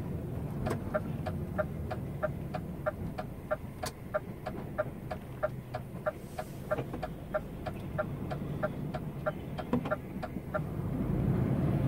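Turn-signal indicator ticking in a truck cab, about three even ticks a second, over the low, steady running of the diesel engine. The truck is signalling a left turn, and the ticking stops near the end as the turn is completed.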